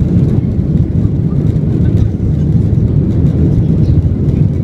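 Passenger airliner's jet engines and airflow: a loud, steady low rumble with no change in pitch.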